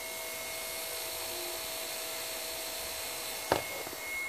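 Electric pump motor of a Mitsubishi Shogun's HBB hydraulic brake booster unit running with a steady whir, pumping brake fluid from the reservoir but not yet building pressure. A single short knock near the end.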